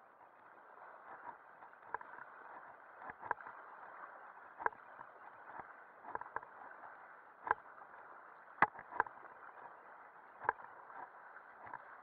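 Raft paddles striking the water and knocking, about ten sharp strikes at irregular intervals over a steady rush of river water.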